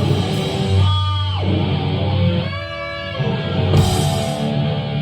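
Live thrash-metal band playing loud, with distorted electric guitars and bass sustaining heavy chords, and a bright crash about four seconds in.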